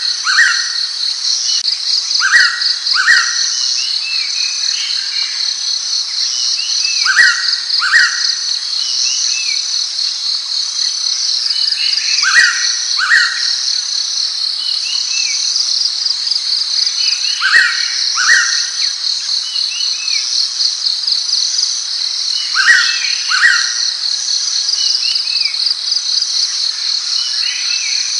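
Blue-winged pitta calling its clear two-note whistle, each note rising, the pair repeated about every five seconds, five times. A steady, pulsing high insect chorus runs underneath.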